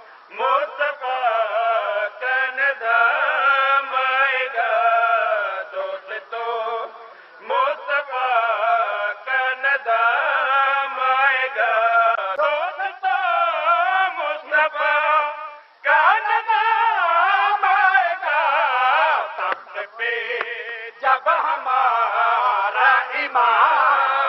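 A man chanting an Urdu devotional qasida in long, wavering melodic lines. He pauses briefly for breath about seven seconds in and again near sixteen seconds.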